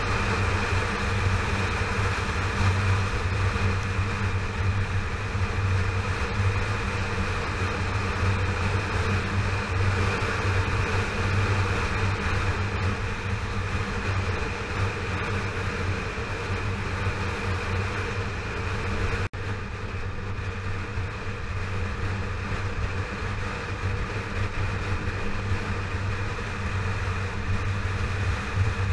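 Yamaha FZ6R motorcycle's 600 cc inline-four running steadily while riding, under a steady rush of noise. There is a brief break about two-thirds of the way through.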